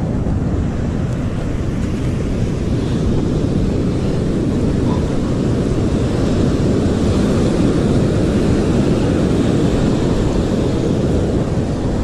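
Steady wind buffeting the camera microphone, mixed with the wash of breaking ocean surf.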